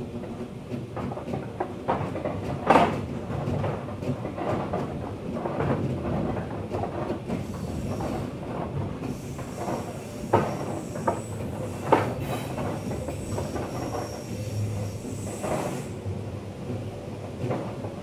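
Electric passenger train running on the track, its wheels clattering over rail joints with a few sharp knocks. Midway, an oncoming double-deck electric train passes close alongside, adding faint high whining tones.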